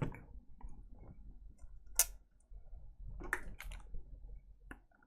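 Scattered small clicks and taps of plastic parts being fitted together as the screen is put back onto a JC PRO1000S programmer. The sharpest click comes about two seconds in, with a quick cluster of three around three and a half seconds.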